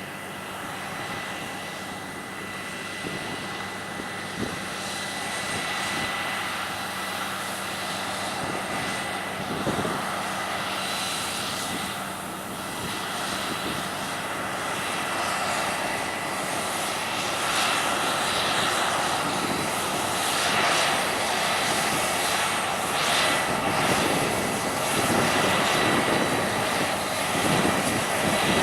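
Claas Lexion 670 combine harvester running while harvesting wheat: a steady engine drone with a thin high whine over it, growing steadily louder as the machine comes closer.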